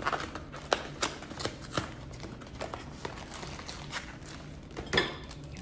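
Cardboard Fruit Roll-Ups box and a wrapped roll being handled as a roll is pulled out: scattered light clicks and crinkles of packaging, with one sharper crackle about five seconds in.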